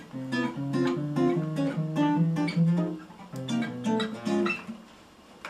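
Acoustic guitar picking a quick lick of single notes and short chords, which stops near the end.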